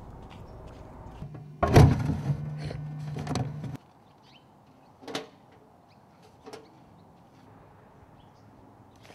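A mailbox door being opened and handled: a loud clank and scraping rattle lasting about two seconds, cut off abruptly. Two faint knocks follow.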